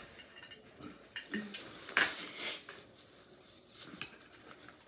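Chopsticks clinking and scraping among clam shells in a glass serving bowl: a scatter of light clicks, the loudest about two seconds in.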